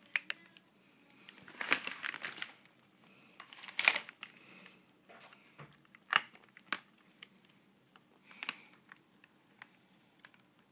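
Plastic packaging and bubble wrap crinkling in irregular bursts as parts are handled, with a few sharp clicks; the loudest crackle comes about four seconds in.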